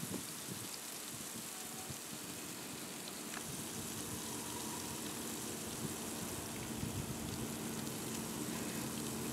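Brine in a bucket fizzing and bubbling around two metal electrodes as 120-volt AC current passes through it and heats it, an electrode boiler at work. A quiet steady hiss with a faint low hum, slowly growing a little louder.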